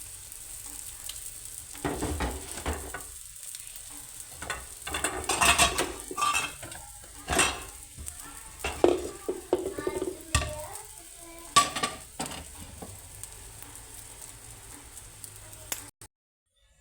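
Food sizzling as it fries in a pan, with a metal spatula or spoon stirring and scraping against the pan in irregular strokes. The sound cuts off near the end.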